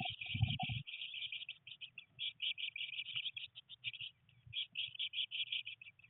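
Blue tit nestlings in a nest box chirping in a fast, unbroken series of short high notes. A few low thumps of movement inside the box come about half a second in.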